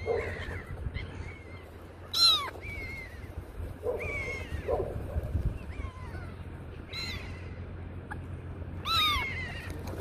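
Black-headed gulls calling around a bread pile: a series of harsh cries that slide downward in pitch, the loudest about two seconds in and again near the end, over a low steady rumble.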